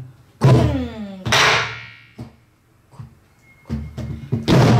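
Sori-buk, the Korean pansori barrel drum, played with a wooden stick and the bare left hand in a slow, spaced rhythm: a deep booming stroke about half a second in, a sharp stick click around two seconds, softer low hand strokes near four seconds, and another booming stroke near the end.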